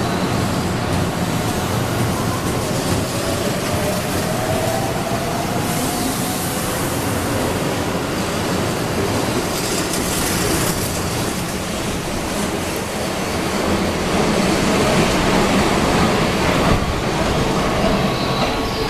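Keihan 7000 series electric train pulling out and accelerating past, its VVVF-driven motors whining and rising in pitch over the first few seconds, over the running noise of the wheels on the rails.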